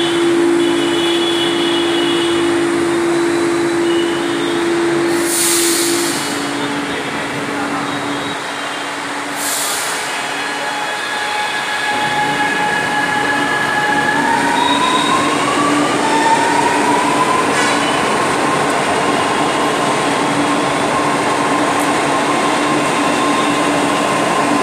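Chennai Metro electric multiple-unit train departing a platform: two short hisses of air, then the whine of its traction motors rising in pitch as it pulls away and accelerates, levelling off into a steady whine over the rumble of the cars.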